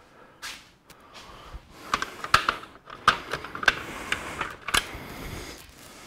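Small hand tools clattering and clicking as someone rummages through a toolbox looking for a razor blade: a run of irregular sharp clicks and rattles, busiest in the middle.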